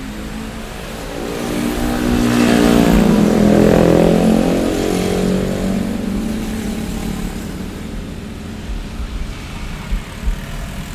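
A motor vehicle drives past over steady street traffic noise: its engine note swells to a peak about three to four seconds in, then drops in pitch and fades. Two brief knocks come near the end.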